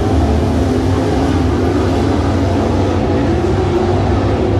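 Engines of several dirt-track race cars running together as the field circles the dirt oval, a loud, steady engine drone.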